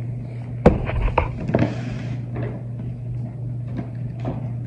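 Packaged items being handled: a sharp knock about half a second in, a few quick clicks, a short rustle near two seconds and scattered small clicks after. A steady low hum sits under it all.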